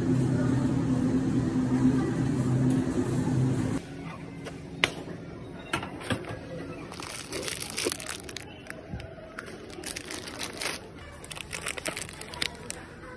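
A steady low hum for about the first four seconds, then it drops away suddenly and plastic food packaging crinkles and rustles with small clicks and knocks as packs are picked up and handled, loudest in two stretches in the middle and near the end.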